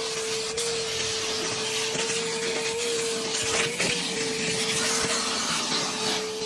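An electric motor running steadily: a high whine over a rushing hiss, with a couple of brief clicks.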